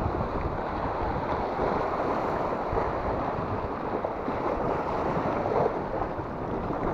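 Strong wind buffeting the microphone, a dense low rumble, over the steady wash of sea waves breaking against the rocks.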